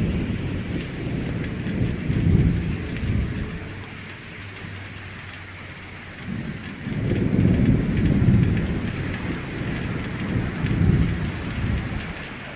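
Steady hiss of rain, with low rumbles of thunder rolling in and fading away several times. The longest roll comes in the second half.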